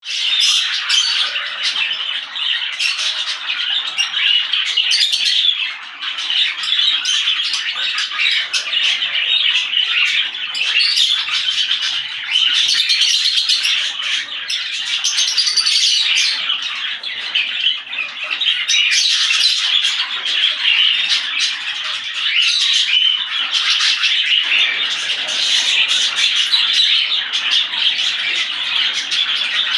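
A mixed flock of small parrots (budgerigars, lovebirds, cockatiels and kakariki) chattering, with many overlapping chirps and sharp squawks in a continuous din.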